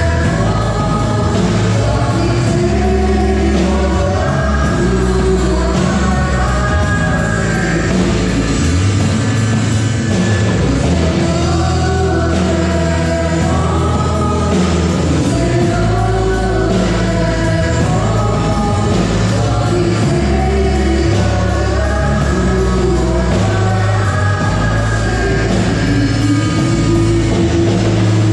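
Church worship band playing live through the PA: sung gospel vocals over electric bass and band accompaniment, the bass notes changing every second or two.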